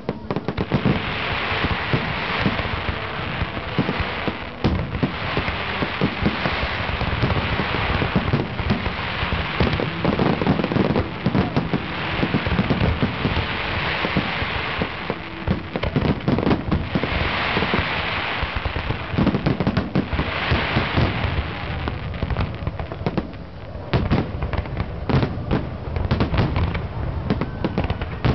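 Fireworks display: aerial shells bursting in quick succession, with dense crackling from the stars that swells and fades several times.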